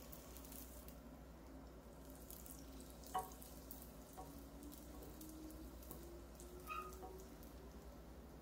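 Hotteok frying in oil in a pan: a faint, steady sizzle with scattered small crackles, and a single click about three seconds in.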